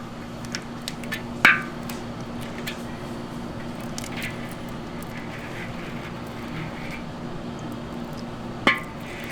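Metal candy-making tools clinking and knocking as they are handled: two sharp, ringing clinks, one about a second and a half in and one near the end, with a few lighter ticks between, over a steady low hum.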